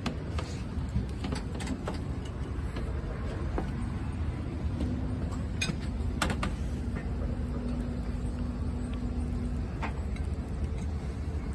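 Steady low background rumble with a faint hum through the middle, and a few scattered small clicks as a small dog eats from a ceramic bowl.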